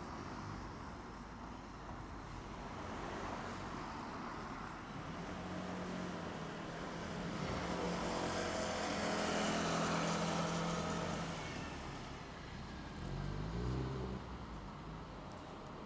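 A car passing on the road, its engine hum and tyre noise swelling to loudest about ten seconds in and then fading. Near the end a vehicle engine briefly revs up with a rising pitch.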